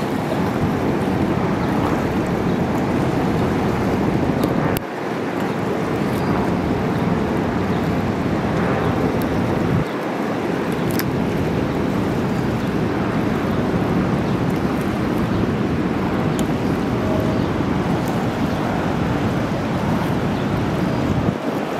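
Steady rush of whitewater in the upper Niagara River rapids, with some wind on the microphone. The sound shifts abruptly twice, about five and ten seconds in.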